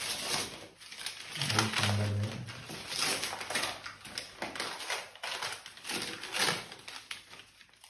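Wrapping paper rustling and crinkling in irregular bursts as a gift is unwrapped by hand, with a short low murmur about one and a half seconds in.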